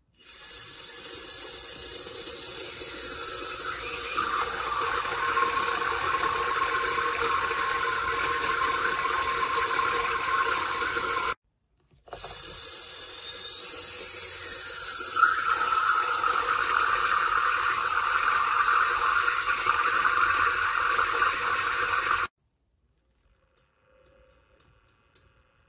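Magnetic stirrer's motor spinning magnets in a glass of water: a steady high whine that rises in pitch as it speeds up, twice, each run cutting off suddenly. The last few seconds are near silent with a few faint ticks.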